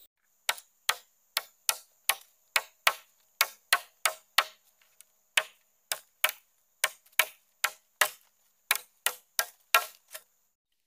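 Machete blade chopping into a bamboo pole: about twenty quick, sharp strikes, two to three a second, with a short pause about halfway through.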